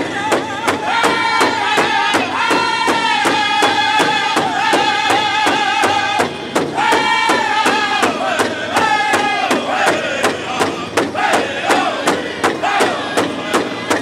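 Powwow drum group singing in high-pitched unison while beating a large shared powwow drum with beaters in a steady beat, about three strikes a second. The voices hold a high line, break off briefly about six seconds in, then come back and fall in descending phrases.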